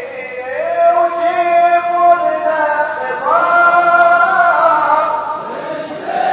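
A man's voice chanting in long held notes that step up and down in pitch.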